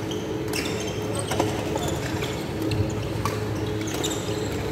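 Badminton rackets hitting a shuttlecock during a doubles rally: several sharp clicks about a second apart, with thuds and squeaks of shoes on the wooden court, in the echo of a large sports hall.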